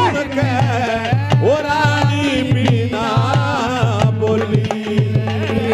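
Folk-theatre music between sung verses: a hand drum keeps a quick, steady beat under a wavering, held melodic line.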